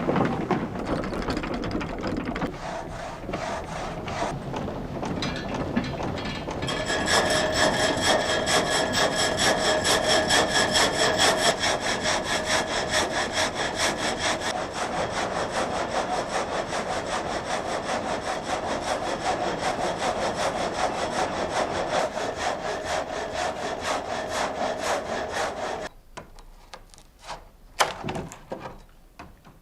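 Blade of a water-powered sawmill cutting through an oak log, a steady rhythmic rasp of rapid strokes. About a quarter of the way in it grows louder and takes on a ringing metallic tone, then stops abruptly near the end, followed by a few knocks.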